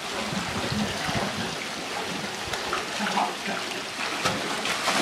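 Swimming-pool water splashing and sloshing as a person wades through it towing a floating plastic bin with someone sitting in it.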